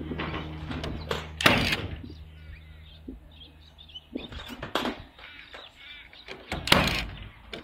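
Cordless nail gun firing nails into roof timber: a few sharp shots, a couple of seconds apart.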